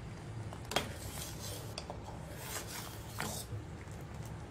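Steel ladle scraping and clinking against a steel pot while milk is stirred and ladled back in, with two sharp metal clinks, one about a second in and one past three seconds.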